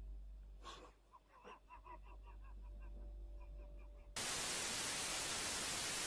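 Faint, quick short squeaky notes, then from about four seconds in a loud, even static hiss like an untuned television, which cuts off abruptly at the end.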